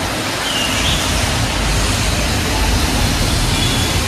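Steady rumble and hiss of road traffic inside a road tunnel, with no clear single event standing out.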